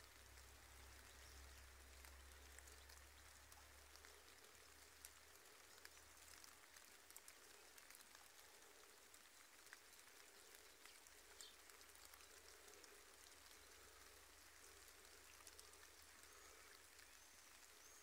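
Faint, steady light rain, with scattered individual raindrops ticking throughout.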